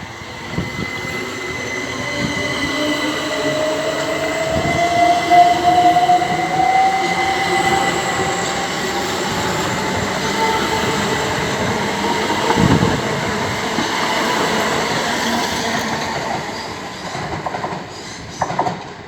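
Class 375 Electrostar electric multiple unit pulling out of the station: its traction motor whine rises steadily in pitch as it accelerates, over the rumble of wheels on rail, then fades in the last few seconds.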